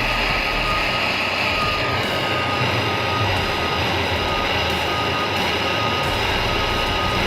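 Steady rushing noise with a thin, high, steady whine, from a heating tool running while solder is melted into a booster-cable lug.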